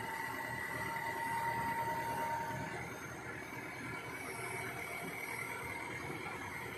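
Kobelco SK220 crawler excavator running under load as it climbs its tracks onto a lowbed trailer. It is a steady engine and machinery noise with a high whine over it; the higher-pitched whine fades about two and a half seconds in, while a second, shriller whine carries on.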